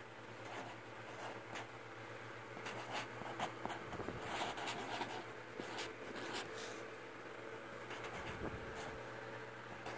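Black felt-tip marker writing on cardboard, in many short strokes, over a steady low hum.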